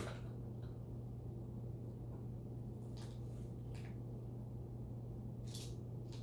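A monkey handling a container lid: a sharp click at the start, then a few brief soft scrapes and rustles, about three seconds in and again near the end, over a steady low hum.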